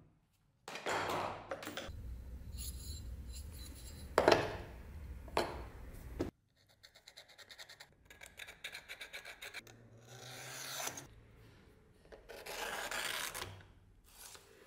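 Hand work on metal in several short takes: a long scraping stretch with two loud knocks about four and five seconds in, then a steel scriber scratching an outline onto a thin steel plate in quick repeated strokes, then more scraping.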